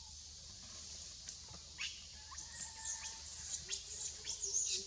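A series of quick, high-pitched chirping squeaks that sweep up and down in pitch, starting about a second in and getting louder toward the end, over a steady high hiss.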